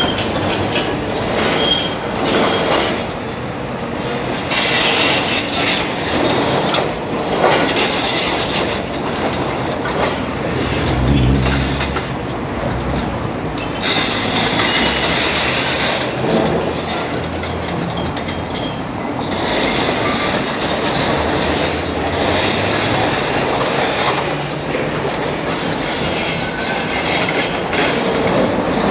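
Excavator-mounted hydraulic breakers hammering concrete, in bursts of several seconds with short pauses. A diesel engine rumbles under load about eleven seconds in.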